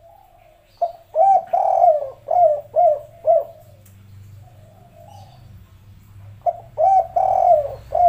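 Spotted dove cooing: a full phrase of a couple of short coos, one long coo and three short falling coos at the end, the 'kuk 3' three-note ending of the tekukur song. A second phrase starts near the end.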